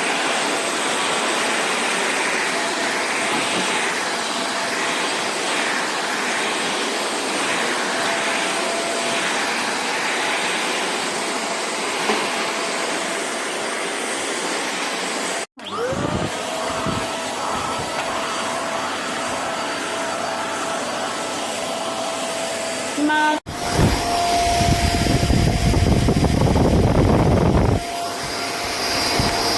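Vexilar C6 corded vacuum cleaner with a 600 W motor running: a steady whine over a rush of air. About halfway through, the motor spins up from a start, its whine rising quickly to a steady pitch. Near the end the rush turns louder and deeper for about four seconds.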